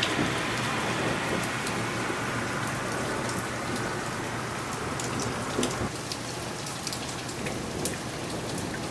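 Hail and rain pelting down in a steady hiss, with many sharp ticks of individual hailstones striking.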